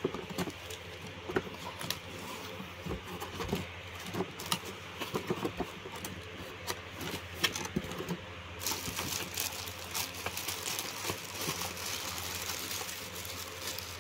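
Plastic packaging bags and bubble wrap crinkling and rustling as hands handle items in a cardboard box, with scattered taps and clicks. About nine seconds in, it turns into a continuous crinkling rustle.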